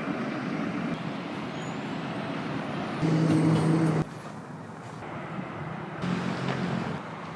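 Road traffic: vehicles passing, with a steady low engine hum from a large vehicle in two short stretches, about three and about six seconds in. The sound changes abruptly several times.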